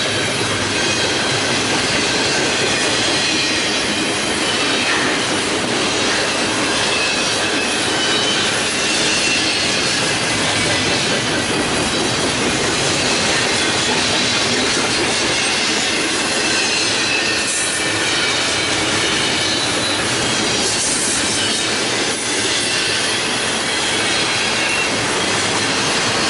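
Double-stack intermodal freight cars rolling past close by: a steady, unbroken rush of steel wheels on rail.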